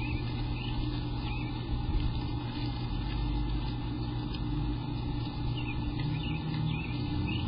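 A steady low hum or drone, with faint short chirps repeating about once or twice a second.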